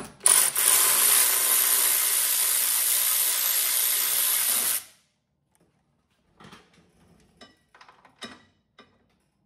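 A power tool spins a socket on a long extension to run off a motor mount nut. It runs steadily for about four and a half seconds and stops abruptly, and a few light metal clinks follow near the end.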